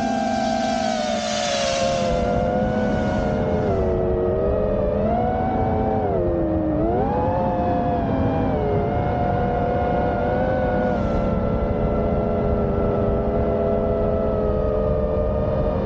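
Brushless motors and propellers of a 5-inch FPV quadcopter whining, heard from on board: several close pitches move together, dipping and rising with the throttle at about four and about seven seconds, then holding nearly steady. A rush of air is mixed in over the first couple of seconds.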